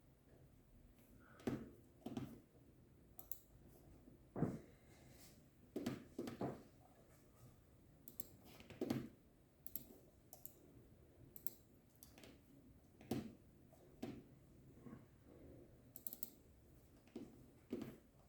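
Irregular light clicks and knocks, about a dozen spread out with pauses between them, as of objects being handled and set up.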